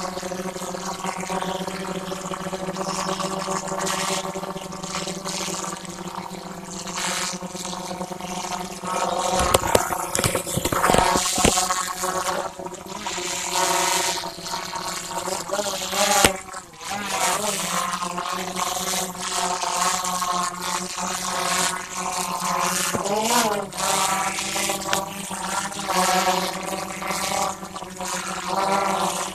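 DJI Phantom 3 Pro quadcopter's electric motors and propellers running with a steady whine as it hovers; the pitch wavers up and down briefly about halfway through and again later as it manoeuvres. A burst of low rumbling about a third of the way in.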